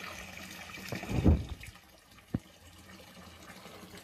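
Water running steadily, as from a pipe into a small pond, dropping to a fainter trickle about a second and a half in. A loud low thump comes just over a second in, and a sharp click about halfway through.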